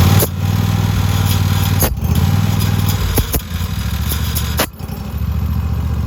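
Riding lawn mower engine running steadily, with a few sharp clicks and brief dips in level.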